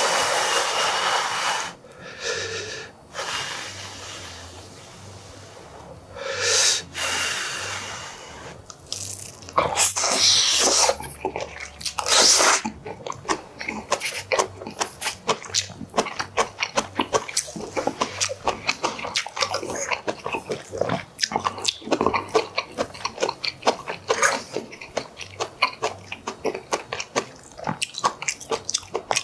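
Close-miked eating of kimchi stew: several long slurps of noodles and stewed kimchi in the first twelve seconds or so, then steady wet chewing with many quick smacking clicks.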